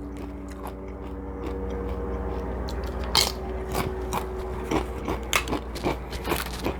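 Close-miked chewing and crunching of food, with a run of short crisp crunches and mouth clicks starting about three seconds in, over a faint steady hum.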